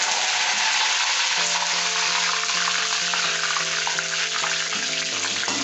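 Curry leaves frying in hot oil in a kadai: a loud, steady sizzle. Background music comes in faintly about a second and a half in.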